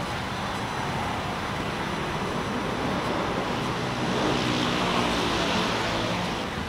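Road traffic: cars and motor scooters passing on a multi-lane elevated road, a steady rush of tyres and engines that grows louder about four seconds in and eases near the end.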